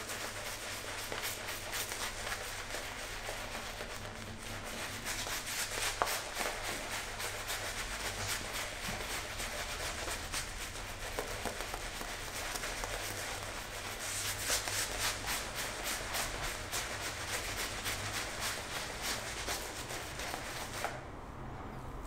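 Synthetic-bristle shaving brush lathering shaving soap on a bearded face: a continuous quick, scratchy swishing of bristles rubbing over skin and stubble, which stops about a second before the end.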